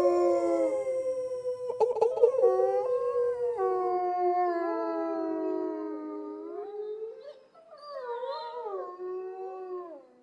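Soundboard sound effect of a pack of canines howling together, several long howls overlapping and sliding in pitch. It thins out in the second half and stops just before the end.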